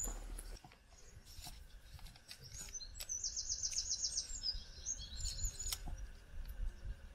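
Small bird singing: scattered chirps and, about three seconds in, a rapid high trill of roughly ten notes. Under it run a low rumble and a few faint clicks.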